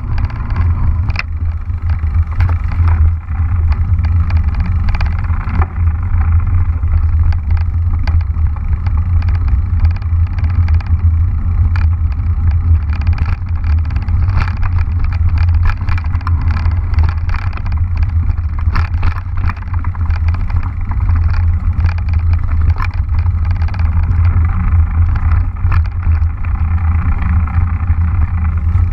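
Mountain bike ridden fast over a leaf-covered dirt trail: a steady wind rumble on the microphone with frequent sharp clicks and rattles from the bike and its tyres going over bumps.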